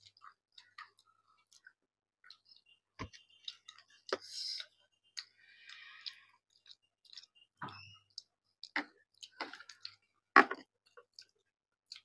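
Eating sounds from a fish curry and rice meal: chewing and small scattered clicks and taps against the plate. The loudest of them is a single knock about ten seconds in.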